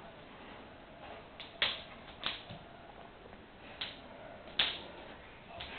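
A dog's claws clicking on a laminate floor as it steps about and paws at a squashed bee: about six sharp, irregular clicks, the loudest a little before the end.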